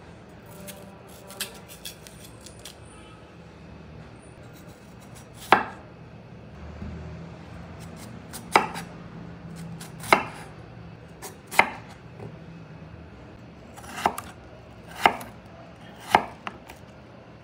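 Knife chopping food on a cutting board: slow, separate chops one to three seconds apart, starting about five seconds in, with a few light taps before them.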